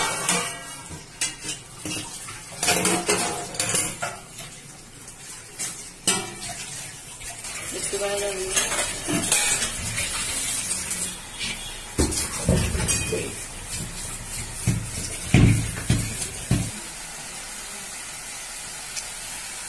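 A metal spatula scrapes and clatters around a wok of prawns in masala while the food sizzles, as the watery gravy is cooked down until nearly dry. There are a few heavier knocks against the pan in the second half.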